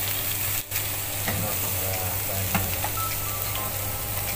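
Whole salted fish sizzling as it grills on a hot galvanized iron sheet: a steady frying hiss over a low, even hum.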